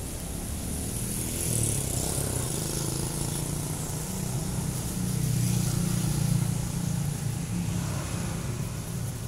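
Street traffic: small motorcycle and scooter engines passing by, swelling louder twice, most strongly about five to seven seconds in.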